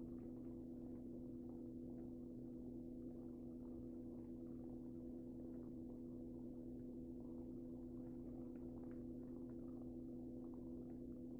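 Faint, steady low hum of several held tones over light hiss and crackle, with no other sound: the background noise of a silent home-movie film transfer.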